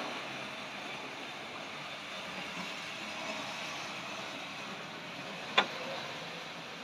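Tri-ang OO-gauge model steam locomotive and coaches from the RS.37 set running on the layout's track, a steady running noise from motor and wheels. One sharp click comes about five and a half seconds in.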